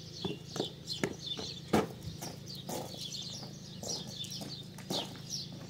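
Small birds chirping repeatedly in short falling notes, over footsteps on gravel and a steady low hum, with one sharper knock just under two seconds in.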